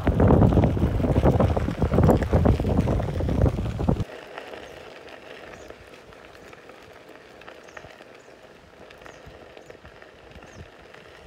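Wind buffeting the microphone, loud and gusty, cutting off suddenly about four seconds in. After that comes a much quieter outdoor background with faint scattered crackles and a few faint high chirps.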